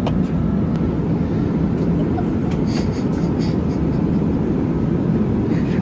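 Steady low rumble of jet airliner cabin noise in flight, with a few faint light rustles about halfway through.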